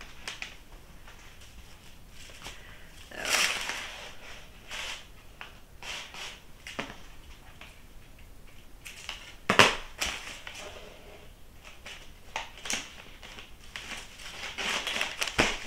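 Intermittent rustling and crinkling of material being handled, with scattered soft clicks and one sharper click about nine and a half seconds in.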